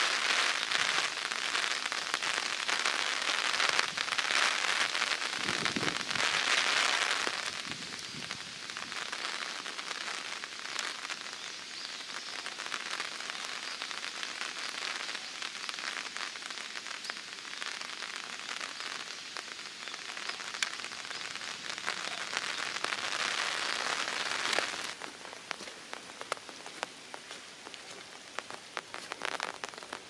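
Steady typhoon rain falling, with many individual drops ticking close by. It is heavier for the first seven seconds or so and again for a few seconds later on, then eases.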